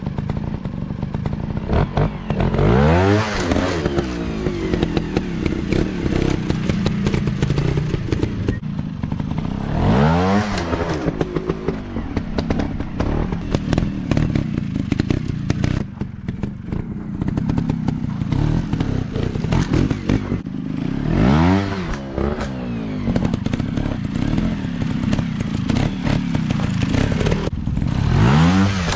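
Trail motorcycle engine revving up and dropping back about four times, running steadily between the revs, with some clatter.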